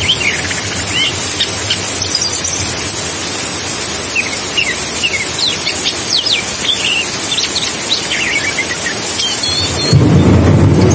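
Oriental magpie-robin (kacer) singing: a run of quick, squeaky, sliding whistles and short chirps over a steady rushing water noise. Near the end a louder, deeper rumble joins in.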